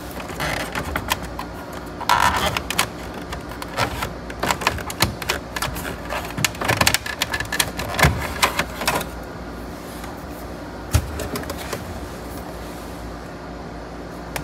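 Clicks, knocks and rattles of a double-DIN stereo mounting kit being handled and pulled out of the dash opening, busy for the first nine seconds or so. After that it goes quieter, with a single knock about eleven seconds in.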